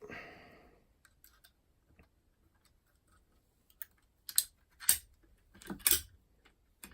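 Metal lock-picking tools clicking and scraping in an ERA Fortress five-lever mortice lock: a few light ticks, then a cluster of sharper clicks about four to six seconds in.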